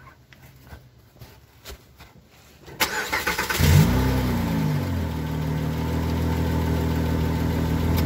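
Car engine cranked by its starter and catching about three seconds in, flaring up in revs and settling into a steady idle. It runs on a resonator-deleted exhaust whose small pipe leak is patched with JB Weld, and the leak's rasp is pretty much gone.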